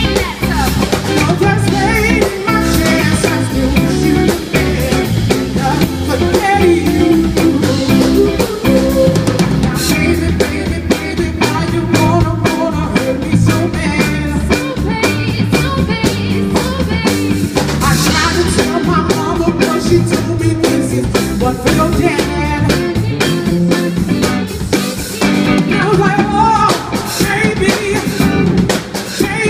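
Live band playing amplified music through a PA: a drum kit keeping a steady beat under electric guitar and bass.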